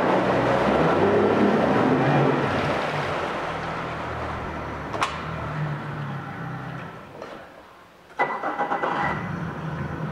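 2019 Yamaha F40 four-stroke outboard running in a test tank, louder for the first couple of seconds and then easing down. About eight seconds in it almost drops out, then comes back suddenly with a steady whine, like the motor being started again.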